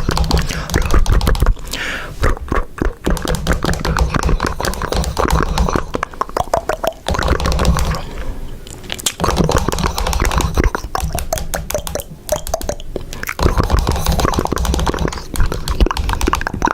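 Mouth sound effects made by a person: a dense, irregular run of clicks and smacks mixed with short pitched vocal noises, broken by a few brief pauses.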